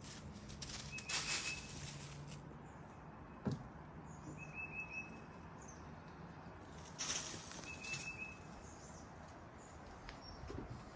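A bird calling, one short high note repeated about every three seconds, over faint outdoor background noise. Bursts of rustling come about a second in and again about seven seconds in, and there is a single sharp knock about three and a half seconds in.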